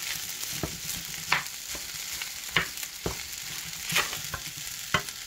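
Shrimp and vegetable fried rice sizzling in a pan while a wooden spatula stirs it, with a sharp scrape or knock of the spatula against the pan about once a second.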